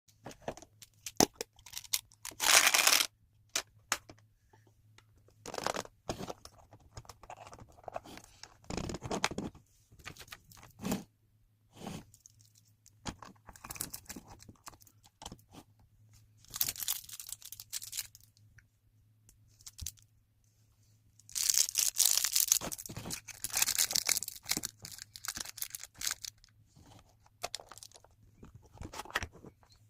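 Groceries being unpacked and put into a refrigerator: plastic bags and wrappers rustling, crinkling and tearing in irregular bursts, with small clicks and knocks of containers being set down. A faint steady low hum runs underneath.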